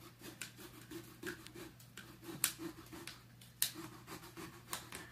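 Small knives cutting and scraping into frozen pumpkins: a run of irregular short clicks, scrapes and sawing strokes, over a faint steady hum.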